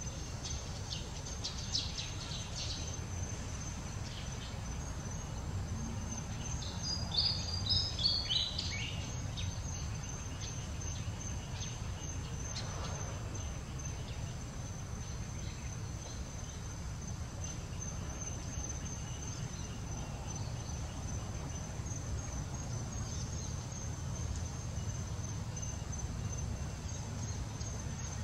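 A steady high-pitched insect drone over a low rumble. About seven seconds in, a short series of high chirps steps down in pitch.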